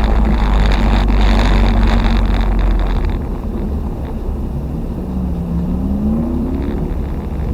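Toyota RAV4's 3S-GE four-cylinder engine heard from inside the car. It runs hard and steady with a lot of road and drivetrain noise, eases off about three seconds in, then revs up again with a rising note near the end.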